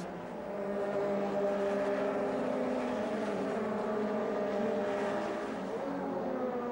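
Several touring car racing engines running at steady high revs as a pack of cars races by, dipping slightly in pitch near the end.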